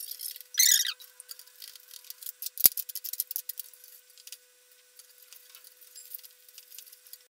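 Hands handling and pushing thin insulated hook-up wires about inside a metal chassis: light scratchy rustling and small ticks. There is one sharp click about two and a half seconds in.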